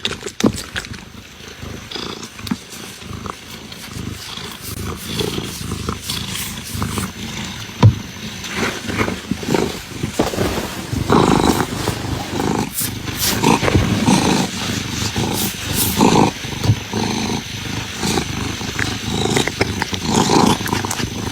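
Kittens making irregular, noisy vocal sounds with scuffling clicks, getting louder after the first few seconds.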